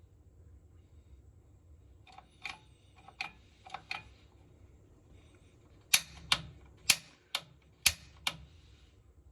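Water heater's piezo pilot igniter clicking as it is pressed again and again to light the pilot, which has not yet caught: a softer run of about five clicks, then a sharper run of about six.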